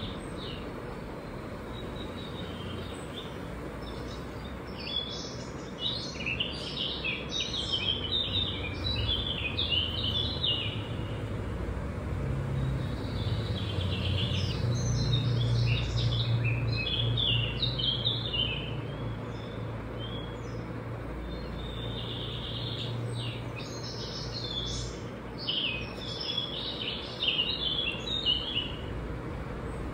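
Birds chirping in three bouts of rapid, high chirps, each several seconds long, over a low steady hum.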